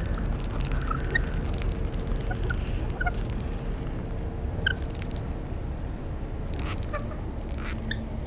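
Rainbow lorikeets at close range making short, scattered chirps and squeaks, mixed with small clicks, over a steady low rumble.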